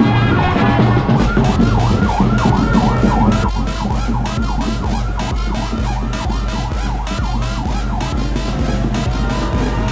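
A rapid yelping siren wail sweeping up and down over a steady thumping music beat, about two beats a second, which comes in about a second in.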